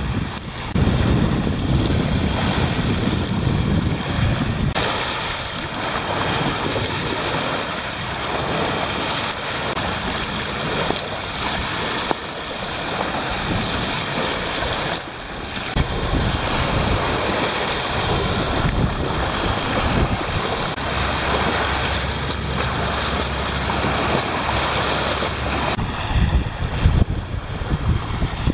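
Sea waves washing on a beach, with wind buffeting the microphone in gusts.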